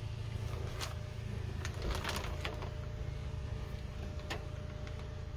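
A few light clicks and small rattles from hands handling parts at the steering column, over a steady low hum.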